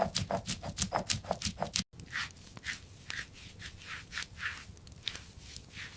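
Food-preparation sounds: a fast run of sharp taps, about five a second, then after an abrupt cut, slower and softer crunching sounds about two a second.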